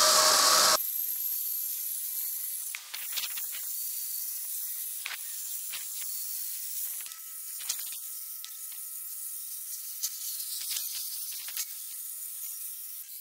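Battery-powered one-handed mini chainsaw cutting through a green log, loud for the first moment. After about a second the sound turns into a thinner, high-pitched hiss with scattered sharp clicks and a faint steady tone in the second half.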